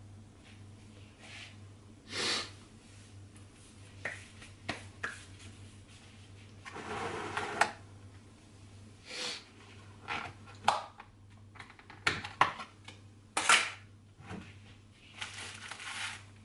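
Kitchen counter handling sounds: a plastic bread bag rustling in several short bursts, with clicks and knocks from a plastic margarine tub and its lid being handled, over a low steady hum.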